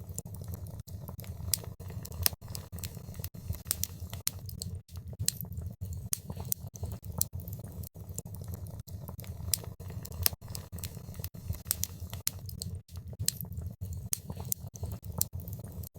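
Wood fire crackling in a fireplace: many sharp, irregular snaps over a steady low rumble of the flames.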